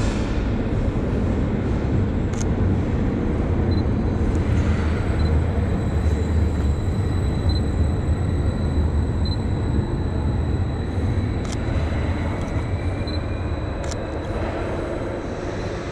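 A nordbahn regional train pulling out of the platform: a steady low rumble of wheels and running gear that swells midway and then eases off, with a whine rising in pitch near the end as it gathers speed. A few sharp clicks sound over it.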